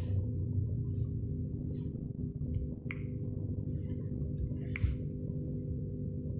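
Steady low electrical hum from a powered Aiwa CSD-ES340 boombox, with two short sharp clicks about three and five seconds in.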